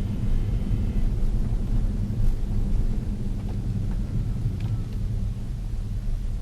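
Tesla Model S 85's electric drive unit running while driving: a steady low rumble with a faint high whine that stops about a second in. This is the 'milling' noise heard when power is applied, which has led some owners to have the drive unit replaced.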